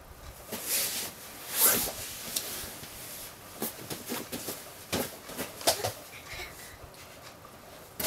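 Toddlers moving about and handling small things such as a child's shoe: irregular knocks, taps and rustles, the loudest about one and a half seconds in.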